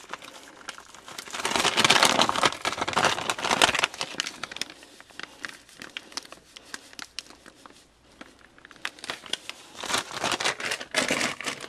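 Plastic spice pouch crinkling as it is handled and its ground cinnamon shaken out over a bowl. It comes in two spells of dense crackling, about a second in and again near the end, with scattered light rustles between.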